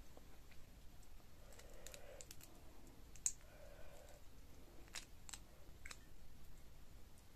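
Boiled shrimp being pulled apart and peeled by hand: a few sharp, separate clicks and crackles of shell spread over the second half, against a quiet room.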